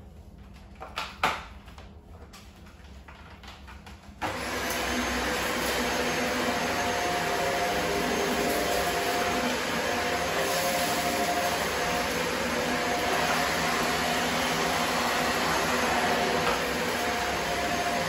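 A couple of clicks and a knock, then a Shark upright vacuum cleaner switches on abruptly and runs steadily, a loud motor rush with a faint whine.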